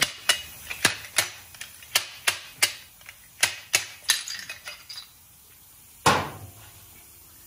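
Fork seal driver tapping a new seal into a motorcycle fork leg: a run of sharp metal clacks, two or three a second, then one louder knock about six seconds in that rings briefly.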